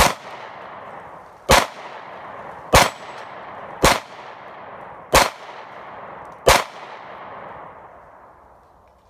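Glock 9 mm pistol fired six times at a slow, steady pace, roughly one shot every 1.3 seconds. Each shot is followed by a long echoing tail, and the last one fades out over about two seconds.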